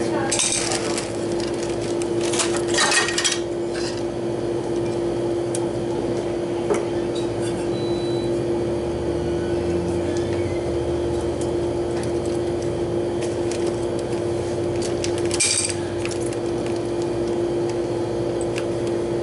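Clinks and knocks of hand tools and small metal parts being handled, in a few sharp clusters (about half a second in, around three seconds, and near the end), over a steady hum.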